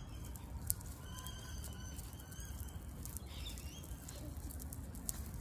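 Outdoor ambience: small birds chirping faintly over a steady low rumble, with a few sharp clicks, the loudest one under a second in.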